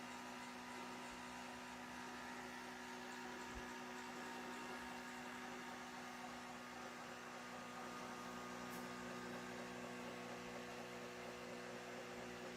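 Small electric motors in a 1/24 scale Revell Huey gunship model running with a faint, steady hum, the motors quietened by cotton wool packed in behind them.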